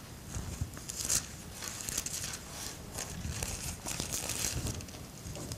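Thin Bible pages rustling and crinkling as they are turned to find a passage: a series of short papery rustles, the loudest about a second in.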